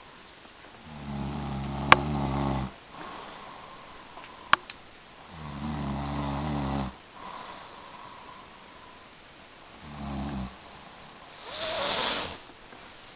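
A man snoring: three snores about four seconds apart, each with a low buzzing pitch, the third shorter, then a breathy exhale near the end. Sharp clicks sound about two seconds in and again about four and a half seconds in.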